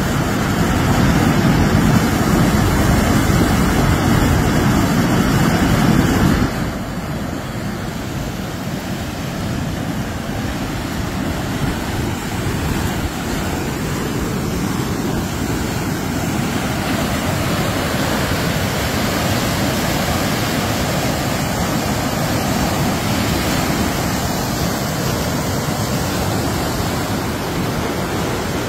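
Fast brown floodwater rushing through a concrete culvert and over the fields, a steady noise, with wind buffeting the microphone. A heavier, deeper rumble in the first six seconds stops abruptly.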